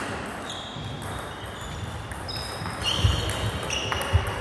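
Table tennis rally: a celluloid-type plastic ball clicking off bats and the table several times at a chopping-rally pace, with a couple of low thumps of footwork on the hall floor near the end.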